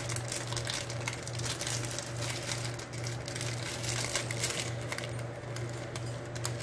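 Thin plastic film crinkling and crackling irregularly as it is peeled off processed cheese slices by hand.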